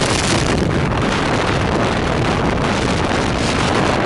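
Wind buffeting the microphone over the steady running of an Evinrude 130 outboard motor and water rushing past the hull as the boat runs at speed.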